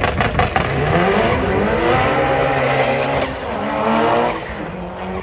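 Car engine revving hard on the track with tire squeal as the car slides: a quick run of sharp pops at the start, then the engine note climbs, holds and falls away near the end.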